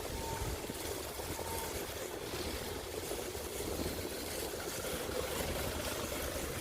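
Steady rumbling noise of a bicycle ride through snow: wind buffeting the microphone and tyres rolling over fresh snow.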